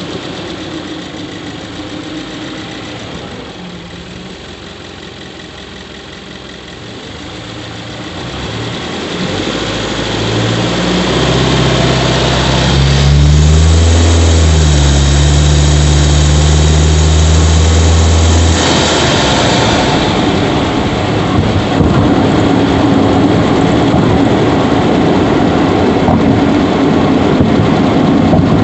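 Subaru Levorg 1.6GT-S's 1.6-litre turbocharged flat-four engine idling, heard at the engine bay, which the owner is checking for an abnormal squeaking noise that grows louder as it runs. The sound gets louder about a third of the way in, with a strong steady low hum for several seconds.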